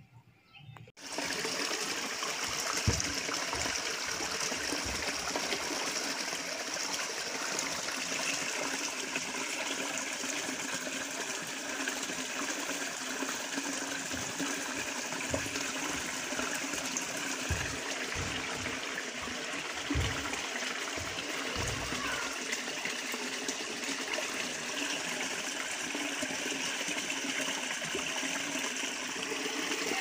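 Water gushing steadily from a PVC pipe and splashing into a bucket and over flooded ground, starting suddenly about a second in. A few short low thumps come through it.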